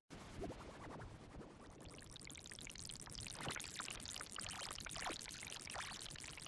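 Bath water pouring, with a few small splashes about halfway through and near the end.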